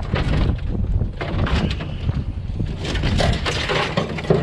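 Strong wind buffeting the microphone with a heavy low rumble, mixed with repeated clattering and crinkling as scrap items are handled.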